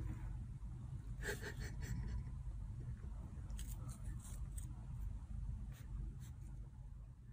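Faint rustling and light plastic clicks from a kitten pawing at and handling a small blue plastic toy, over a low steady room hum. The clicks come in short clusters, about a second in and again around four seconds in.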